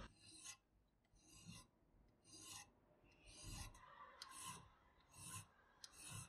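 Flat hand file rasping along the rusty metal slide of a toy Beretta pistol, taking the rust off. The file strokes are faint and even, about seven of them, roughly one a second.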